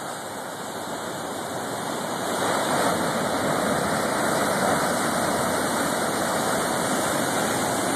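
Big storm wave breaking on shoreline rocks: a rushing noise of surf that swells over the first few seconds, then holds steady as the water washes over the rocks.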